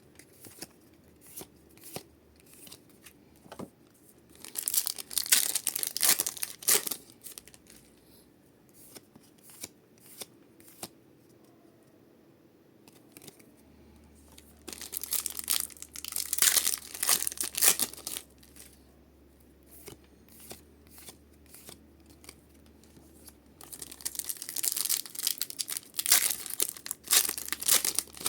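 Foil booster packs of Pokémon cards being torn open and crinkled: three bursts of tearing, about ten seconds apart, with small clicks and rustles of handling between them.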